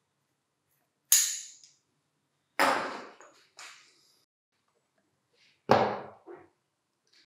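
Metal parts of a grinder motor handled with a bearing puller on a wooden workbench: a sharp metallic click about a second in, then two heavier knocks about two and a half and nearly six seconds in, each dying away quickly. They come as a bearing is pulled off the armature shaft and the armature is set down on the bench.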